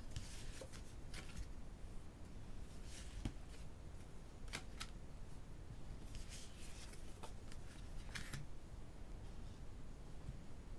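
Tarot cards being turned over and slid off the tops of two decks by hand: a scattering of short, papery swishes and flicks at irregular intervals.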